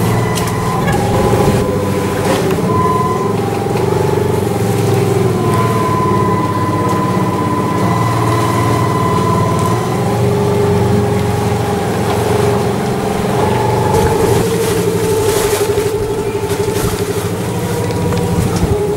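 Engine of a small canal ferry boat running steadily under way: a continuous low rumble with a held tone that drifts slowly up and down in pitch.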